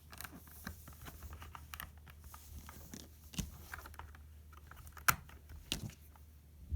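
LEGO plastic bricks and parts of a puzzle box clicking and knocking as they are handled, twisted and pushed: scattered small clicks, with one sharp click about five seconds in.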